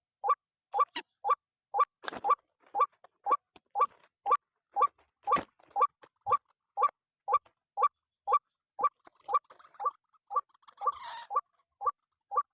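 White-breasted waterhen (ruak-ruak) call repeated steadily, about two short notes a second, the monotonous lure call used to draw wild waterhens to a snare. Some rustling and a single knock about five seconds in.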